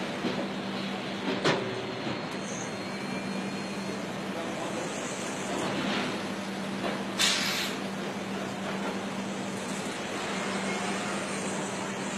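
Foundry casting machine running with a steady hum and machinery noise, a sharp clack about a second and a half in and a short blast of hissing air around seven seconds in.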